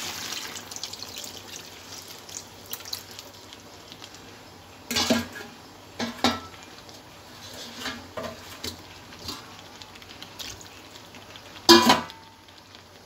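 Water poured into a hot metal kadai of fried potatoes and spiced paste, hissing as it hits the pan and fading within the first second or so. Then a spoon knocks against the pan a few times as the gravy is stirred, with sharp clatters about 5 and 6 seconds in and the loudest near the end.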